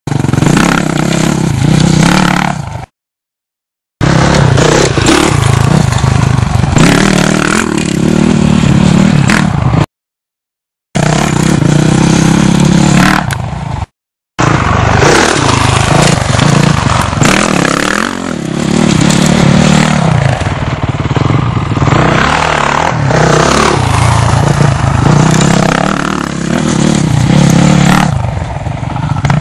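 Dirt bike engine revving up and down as the bike rides the dirt track and goes over a jump, the engine pitch rising and falling with the throttle. The sound cuts out to silence three times, briefly each time.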